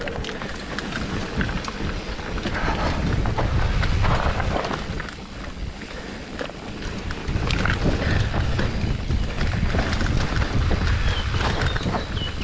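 Mountain bike descending a dirt forest trail: wind buffeting the camera microphone over tyre rumble, with frequent knocks and rattles as the bike rides over roots and bumps. It grows louder in two stretches as the pace picks up.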